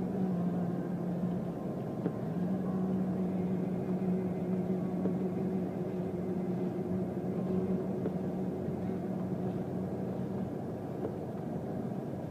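A steady motor drone: a constant low hum over a rushing noise. The hum drops away shortly before the end.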